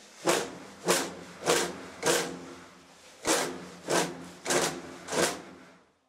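Clump of eiderdown rubbed hard against a wire-strung wooden cleaning sieve: eight rubbing strokes about two thirds of a second apart, in two runs of four with a short pause between. It is the traditional hand cleaning of eiderdown, working dirt and loose feathers out through the wires.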